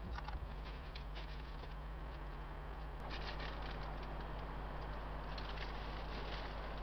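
A camp gas stove burner hissing steadily under a lidded pot, with light irregular crackling from glowing charcoal in a small tabletop grill. A brief clatter of tongs and pot right at the start, and a sharp click about 3 seconds in, after which the hiss is a little louder.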